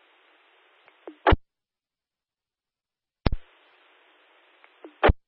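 Police dispatch radio through a scanner: a keyed channel carrying only a steady hiss, with no voice. The hiss cuts off with a sharp squelch click about a second in. After two seconds of dead silence another click opens the hiss again, and a final click closes it near the end.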